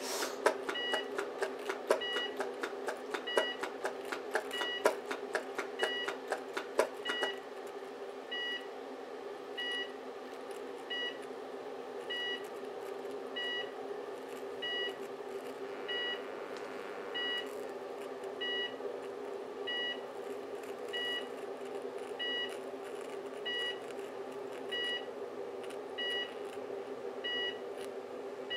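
High-voltage arcing crackling and snapping across a cooker switch and socket fed by two microwave oven transformers in series, over the transformers' steady hum; the snapping stops about seven seconds in, leaving the hum as the socket burns. A short electronic beep repeats about every second and a quarter.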